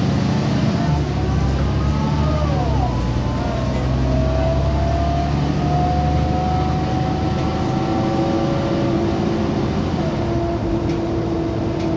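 Mercedes-Benz O405GN articulated bus's diesel engine running as the bus drives, with a steady low drone and a whine that climbs slowly in pitch for several seconds as it pulls away.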